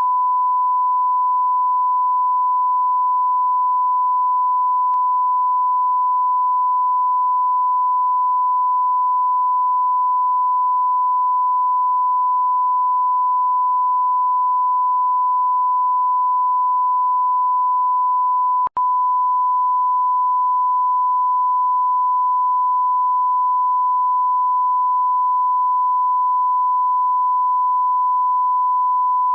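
Censor bleep: a single pure tone held at one steady pitch and level. About two-thirds of the way through it cuts out for a split second with a click, then carries on unchanged.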